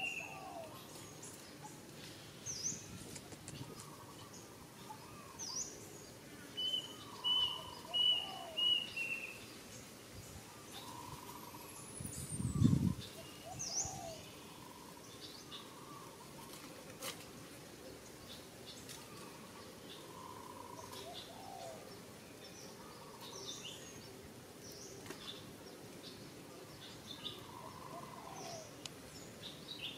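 Several birds calling and chirping, with a quick run of four short repeated notes about seven seconds in. A brief low thump near the middle is the loudest sound.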